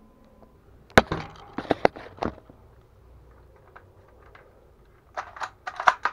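Handling noise as the camera is set down near the airsoft rifle: a sharp knock about a second in, followed by a quick run of rattling clicks and knocks, then another cluster of sharp clicks near the end.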